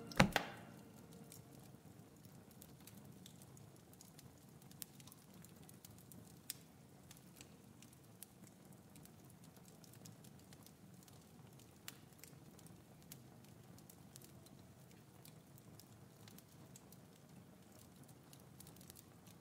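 A single heavy thud right at the start, then a faint steady crackling with scattered soft clicks every few seconds.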